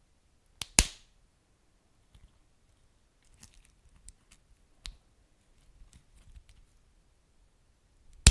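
Wood fire crackling: scattered sharp pops and snaps from burning logs over a faint low rumble, with a loud pop about a second in and another near the end.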